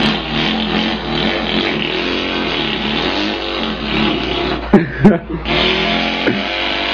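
A man imitating an engine with his mouth, a continuous buzzing drone that wavers and rises in pitch like revving, broken by two sharp loud pops about five seconds in.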